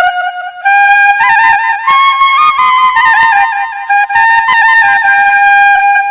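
Music: a Santhali ringtone tune, a single high melody line in a flute-like voice, moving in held notes with quick ornamental turns between them, over faint percussion ticks.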